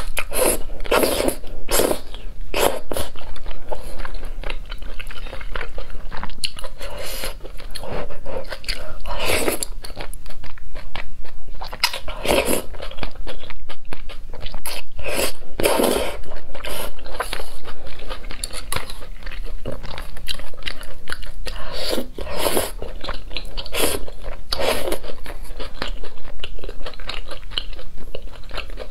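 Close-miked eating sounds: thick noodles in spicy sauce being slurped off chopsticks and chewed, in repeated short wet bursts.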